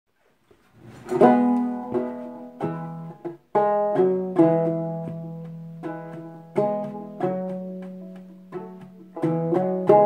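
Fretless gourd banjo played clawhammer style: plucked notes and strums that ring and fade, starting about a second in.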